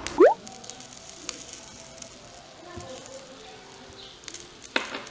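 A short upward-sliding 'bloop' sound effect about a quarter second in, then the faint crackling sizzle of rice frying in a miniature steel wok, with a sharp click near the end.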